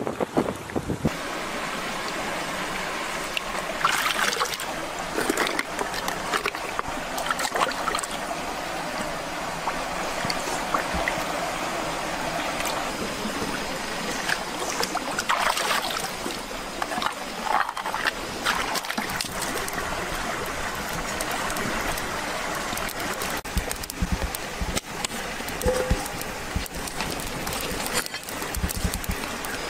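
Shallow stream flowing steadily over rocks, with scattered small splashes and clicks.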